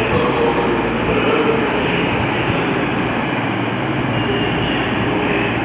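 Class 221 Super Voyager diesel-electric train running at the platform, its underfloor diesel engines giving a steady noise with a faint low hum.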